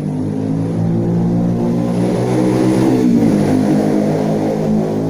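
An engine running steadily, its pitch rising and then dropping a little just past the middle, like a motor vehicle going by.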